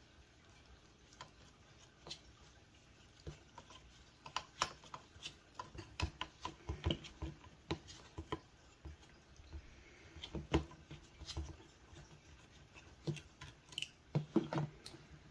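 Irregular light clicks and taps of a folding hex key set and small metal parts as the stock hardware is taken off the rear of a Valken M17 paintball marker.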